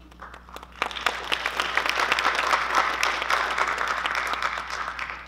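Audience applauding, building up about a second in and thinning out near the end, over a steady low electrical hum from the sound system.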